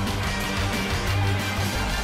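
Game-show closing theme music in a rock style, with guitar.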